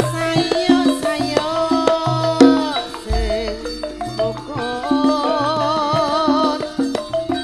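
Javanese gamelan playing tayub dance music: kendang drum strokes and struck metallophone notes under a gliding, wavering melody line. A deep low gong stroke comes in about three seconds in and hangs on.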